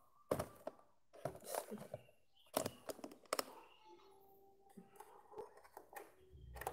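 Scattered light clicks and knocks from a handheld plastic satellite finder meter being handled, with a thumb moving over its keypad, about a dozen sharp taps spread over several seconds.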